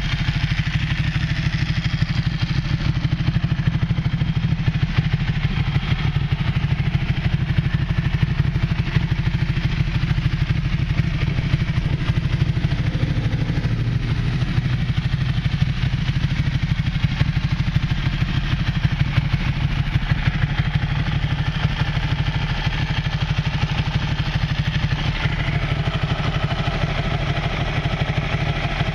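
Ducati 1199S Panigale's 1198 cc Superquadro V-twin idling steadily through a full Termignoni exhaust, with a deep, even exhaust note.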